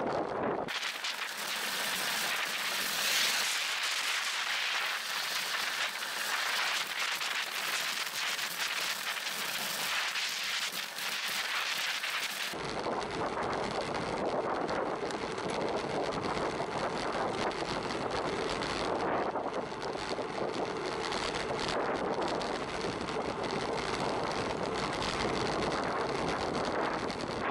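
Wind rushing over the microphone of a camera carried on a moving bicycle ride, with road and tyre noise. For the first dozen seconds it is a thin hiss with little low end. It then switches abruptly to a fuller, deeper wind noise.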